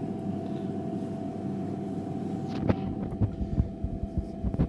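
A steady electrical hum, with irregular light knocks and clicks starting a little past halfway, as of a lathe chuck being handled.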